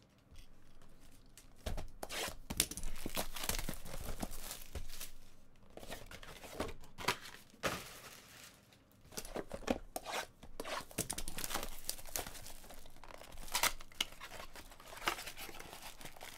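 Plastic shrink wrap being torn and peeled off a sealed cardboard trading-card box, then the box opened, in a quick run of irregular tearing, crinkling and scraping sounds.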